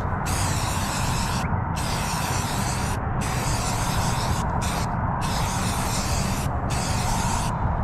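Aerosol spray can of primer hissing in about six bursts of roughly a second each, with brief gaps between them, over a steady low rumble.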